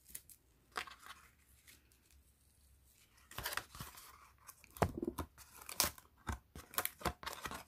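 Masking tape being slowly peeled off watercolour paper. A few faint ticks, then from about three seconds in a run of dry crackles and clicks as the tape lifts away.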